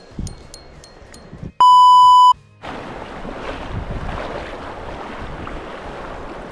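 A loud, steady high beep lasting under a second, the kind dropped in by an editor to bleep out a word. It is followed by a steady rushing noise.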